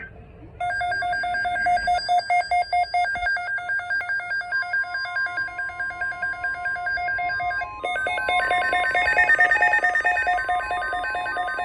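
Weather radio alert: an electronic alarm beeping in rapid pulses, joined about four and a half seconds in by the steady NOAA Weather Radio warning tone near 1 kHz. The pulsing turns denser and louder near the eight-second mark, announcing a severe thunderstorm watch.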